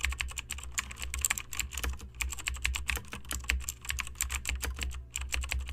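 Fast typing on a computer keyboard: a dense, irregular stream of key clicks with a couple of brief pauses, over a low steady hum.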